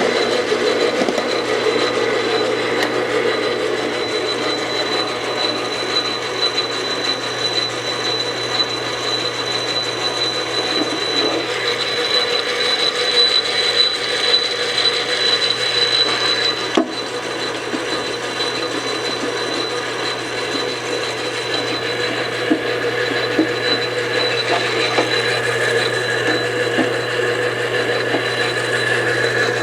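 Enco 12" x 36" gap-bed engine lathe running under power, a steady whine of spindle and gears over a constant hum. A single click about 17 seconds in, after which it runs a little quieter.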